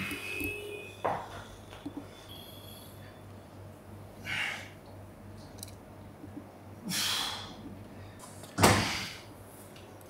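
Lat pulldown machine in use during a set: hard breaths in rhythm with the pulls and knocks and slides from the cable and weight stack, the loudest near the end. A low steady hum runs underneath.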